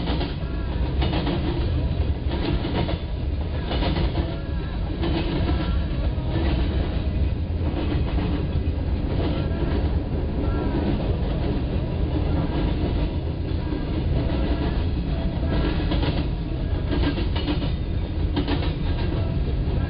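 Freight train rolling past: a steady heavy rumble with frequent clacks of its wheels over the rail joints.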